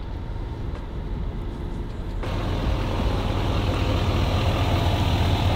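Pickup truck's engine running, a steady low rumble that grows louder about two seconds in.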